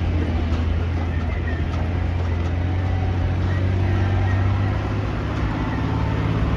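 Unimog's engine running steadily under load as the truck climbs a steep, rutted dirt hill track: a steady, deep drone.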